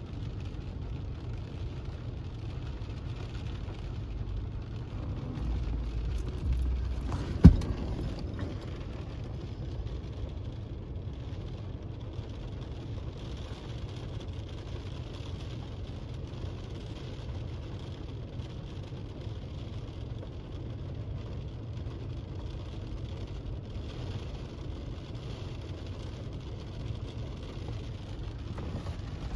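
Steady low rumble of a car, heard from a storm chaser's vehicle, with a single sharp knock about seven seconds in.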